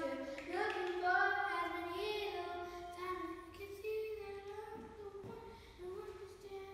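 A child singing a slow melody of long held notes, without words the recogniser could make out, growing quieter in the second half.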